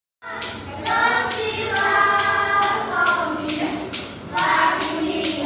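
A group of voices singing together over a steady clapped beat, about two claps a second.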